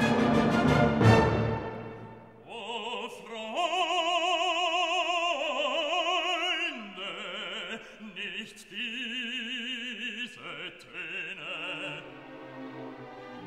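Background music: an orchestral passage that dies away about two seconds in, followed by an operatic voice singing held notes with wide vibrato over a light accompaniment.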